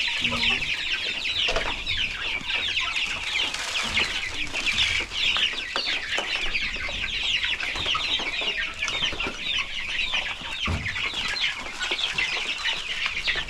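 A crowded flock of young chicks peeping without a break, many high, short, falling chirps overlapping: hungry chicks around the feeders. A dull knock near the end.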